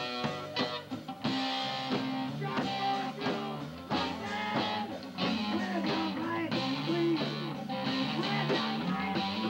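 Rock band playing a song live, with electric guitar, bass guitar and drums.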